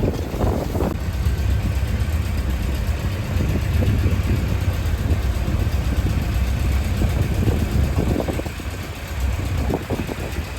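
Fishing boat's diesel engine running steadily, a low drone.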